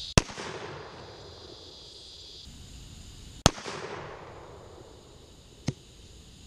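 Three shots from a Pietta 1858 Remington .44 black powder revolver: two loud reports about three seconds apart, each ringing out briefly, then a quieter third about two seconds later.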